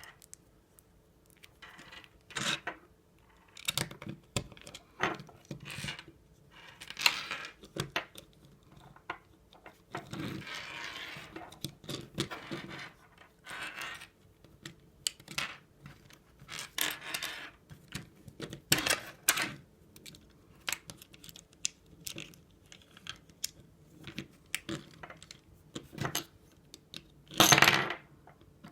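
Hard plastic parts of a Beyblade Burst string launcher clicking, tapping and rattling as they are handled and fitted together: scattered irregular knocks, a longer scraping stretch about ten seconds in, and a louder knock near the end.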